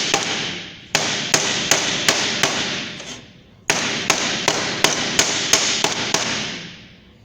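Hammer blows flattening the crimped seam of a sheet-metal bottom onto its rim, about three strikes a second. The strikes come in runs with short pauses about one and three seconds in, and the thin metal rings between blows.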